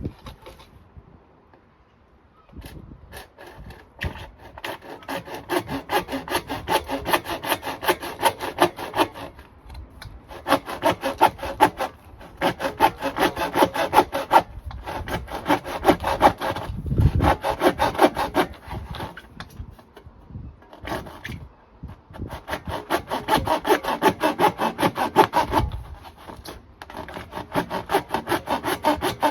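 Saw cutting through a drain pipe in quick back-and-forth strokes. The strokes come in runs of a few seconds with short pauses between.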